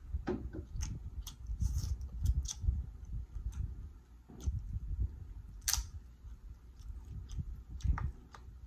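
Close-miked chewing of seafood-boil crab meat: soft low thumps of the jaw with many short wet mouth clicks and sharp clicks from crab shell being handled, one louder click a little before six seconds in.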